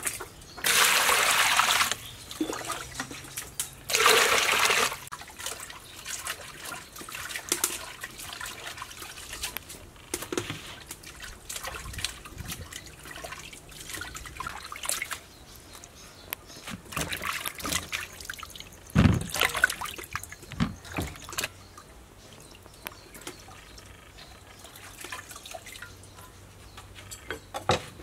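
Hands washing vegetables in a large aluminium basin of water: splashing and trickling, with two louder rushes of water in the first five seconds. Scattered small knocks against the metal basin, and one louder thump about two-thirds of the way through.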